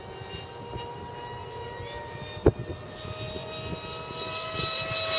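Two electric RC speed planes' brushless motors and 5x5 propellers whining at full throttle, two steady high whines at slightly different pitches that grow louder toward the end as the planes come closer. A single sharp click about two and a half seconds in.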